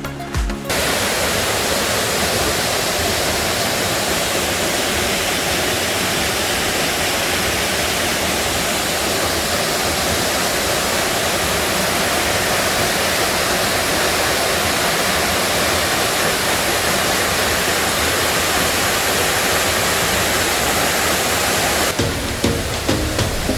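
Mountain waterfall pouring into a pool: a steady, even rush of falling water. Background music cuts out within the first second and comes back near the end.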